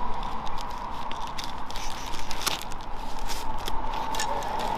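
Steady roadside traffic noise with a constant mid-pitched hum, broken by scattered sharp crackles and clicks.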